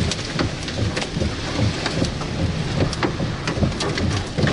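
Rain striking the roof and windshield of a car, heard from inside the cabin: many small irregular taps over a steady low rumble of the vehicle.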